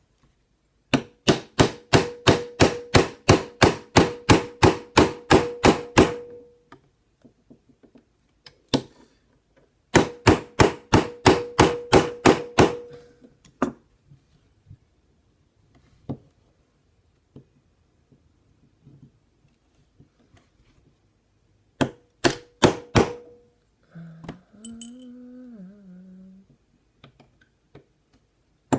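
Hammer tapping a pin punch in quick strikes, about four a second, each with a short metallic ring, to drive a tight pin out of a Smith & Wesson M&P Shield 9mm pistol frame. There are two long runs of tapping and a short burst of a few taps later. A person hums briefly near the end.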